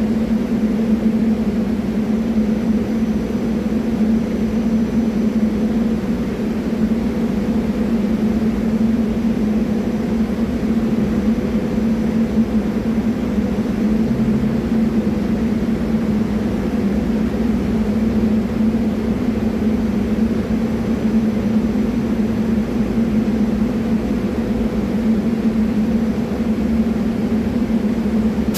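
Stationary SEPTA Regional Rail electric railcar humming steadily while it stands at the platform: a constant low drone with a fainter higher tone above it.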